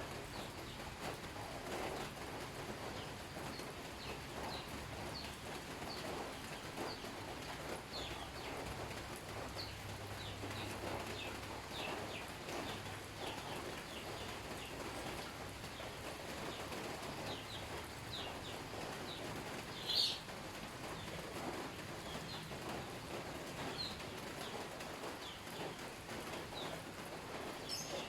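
Small birds chirping over and over with short falling calls, over a steady background hiss, with one sharp click well past the middle.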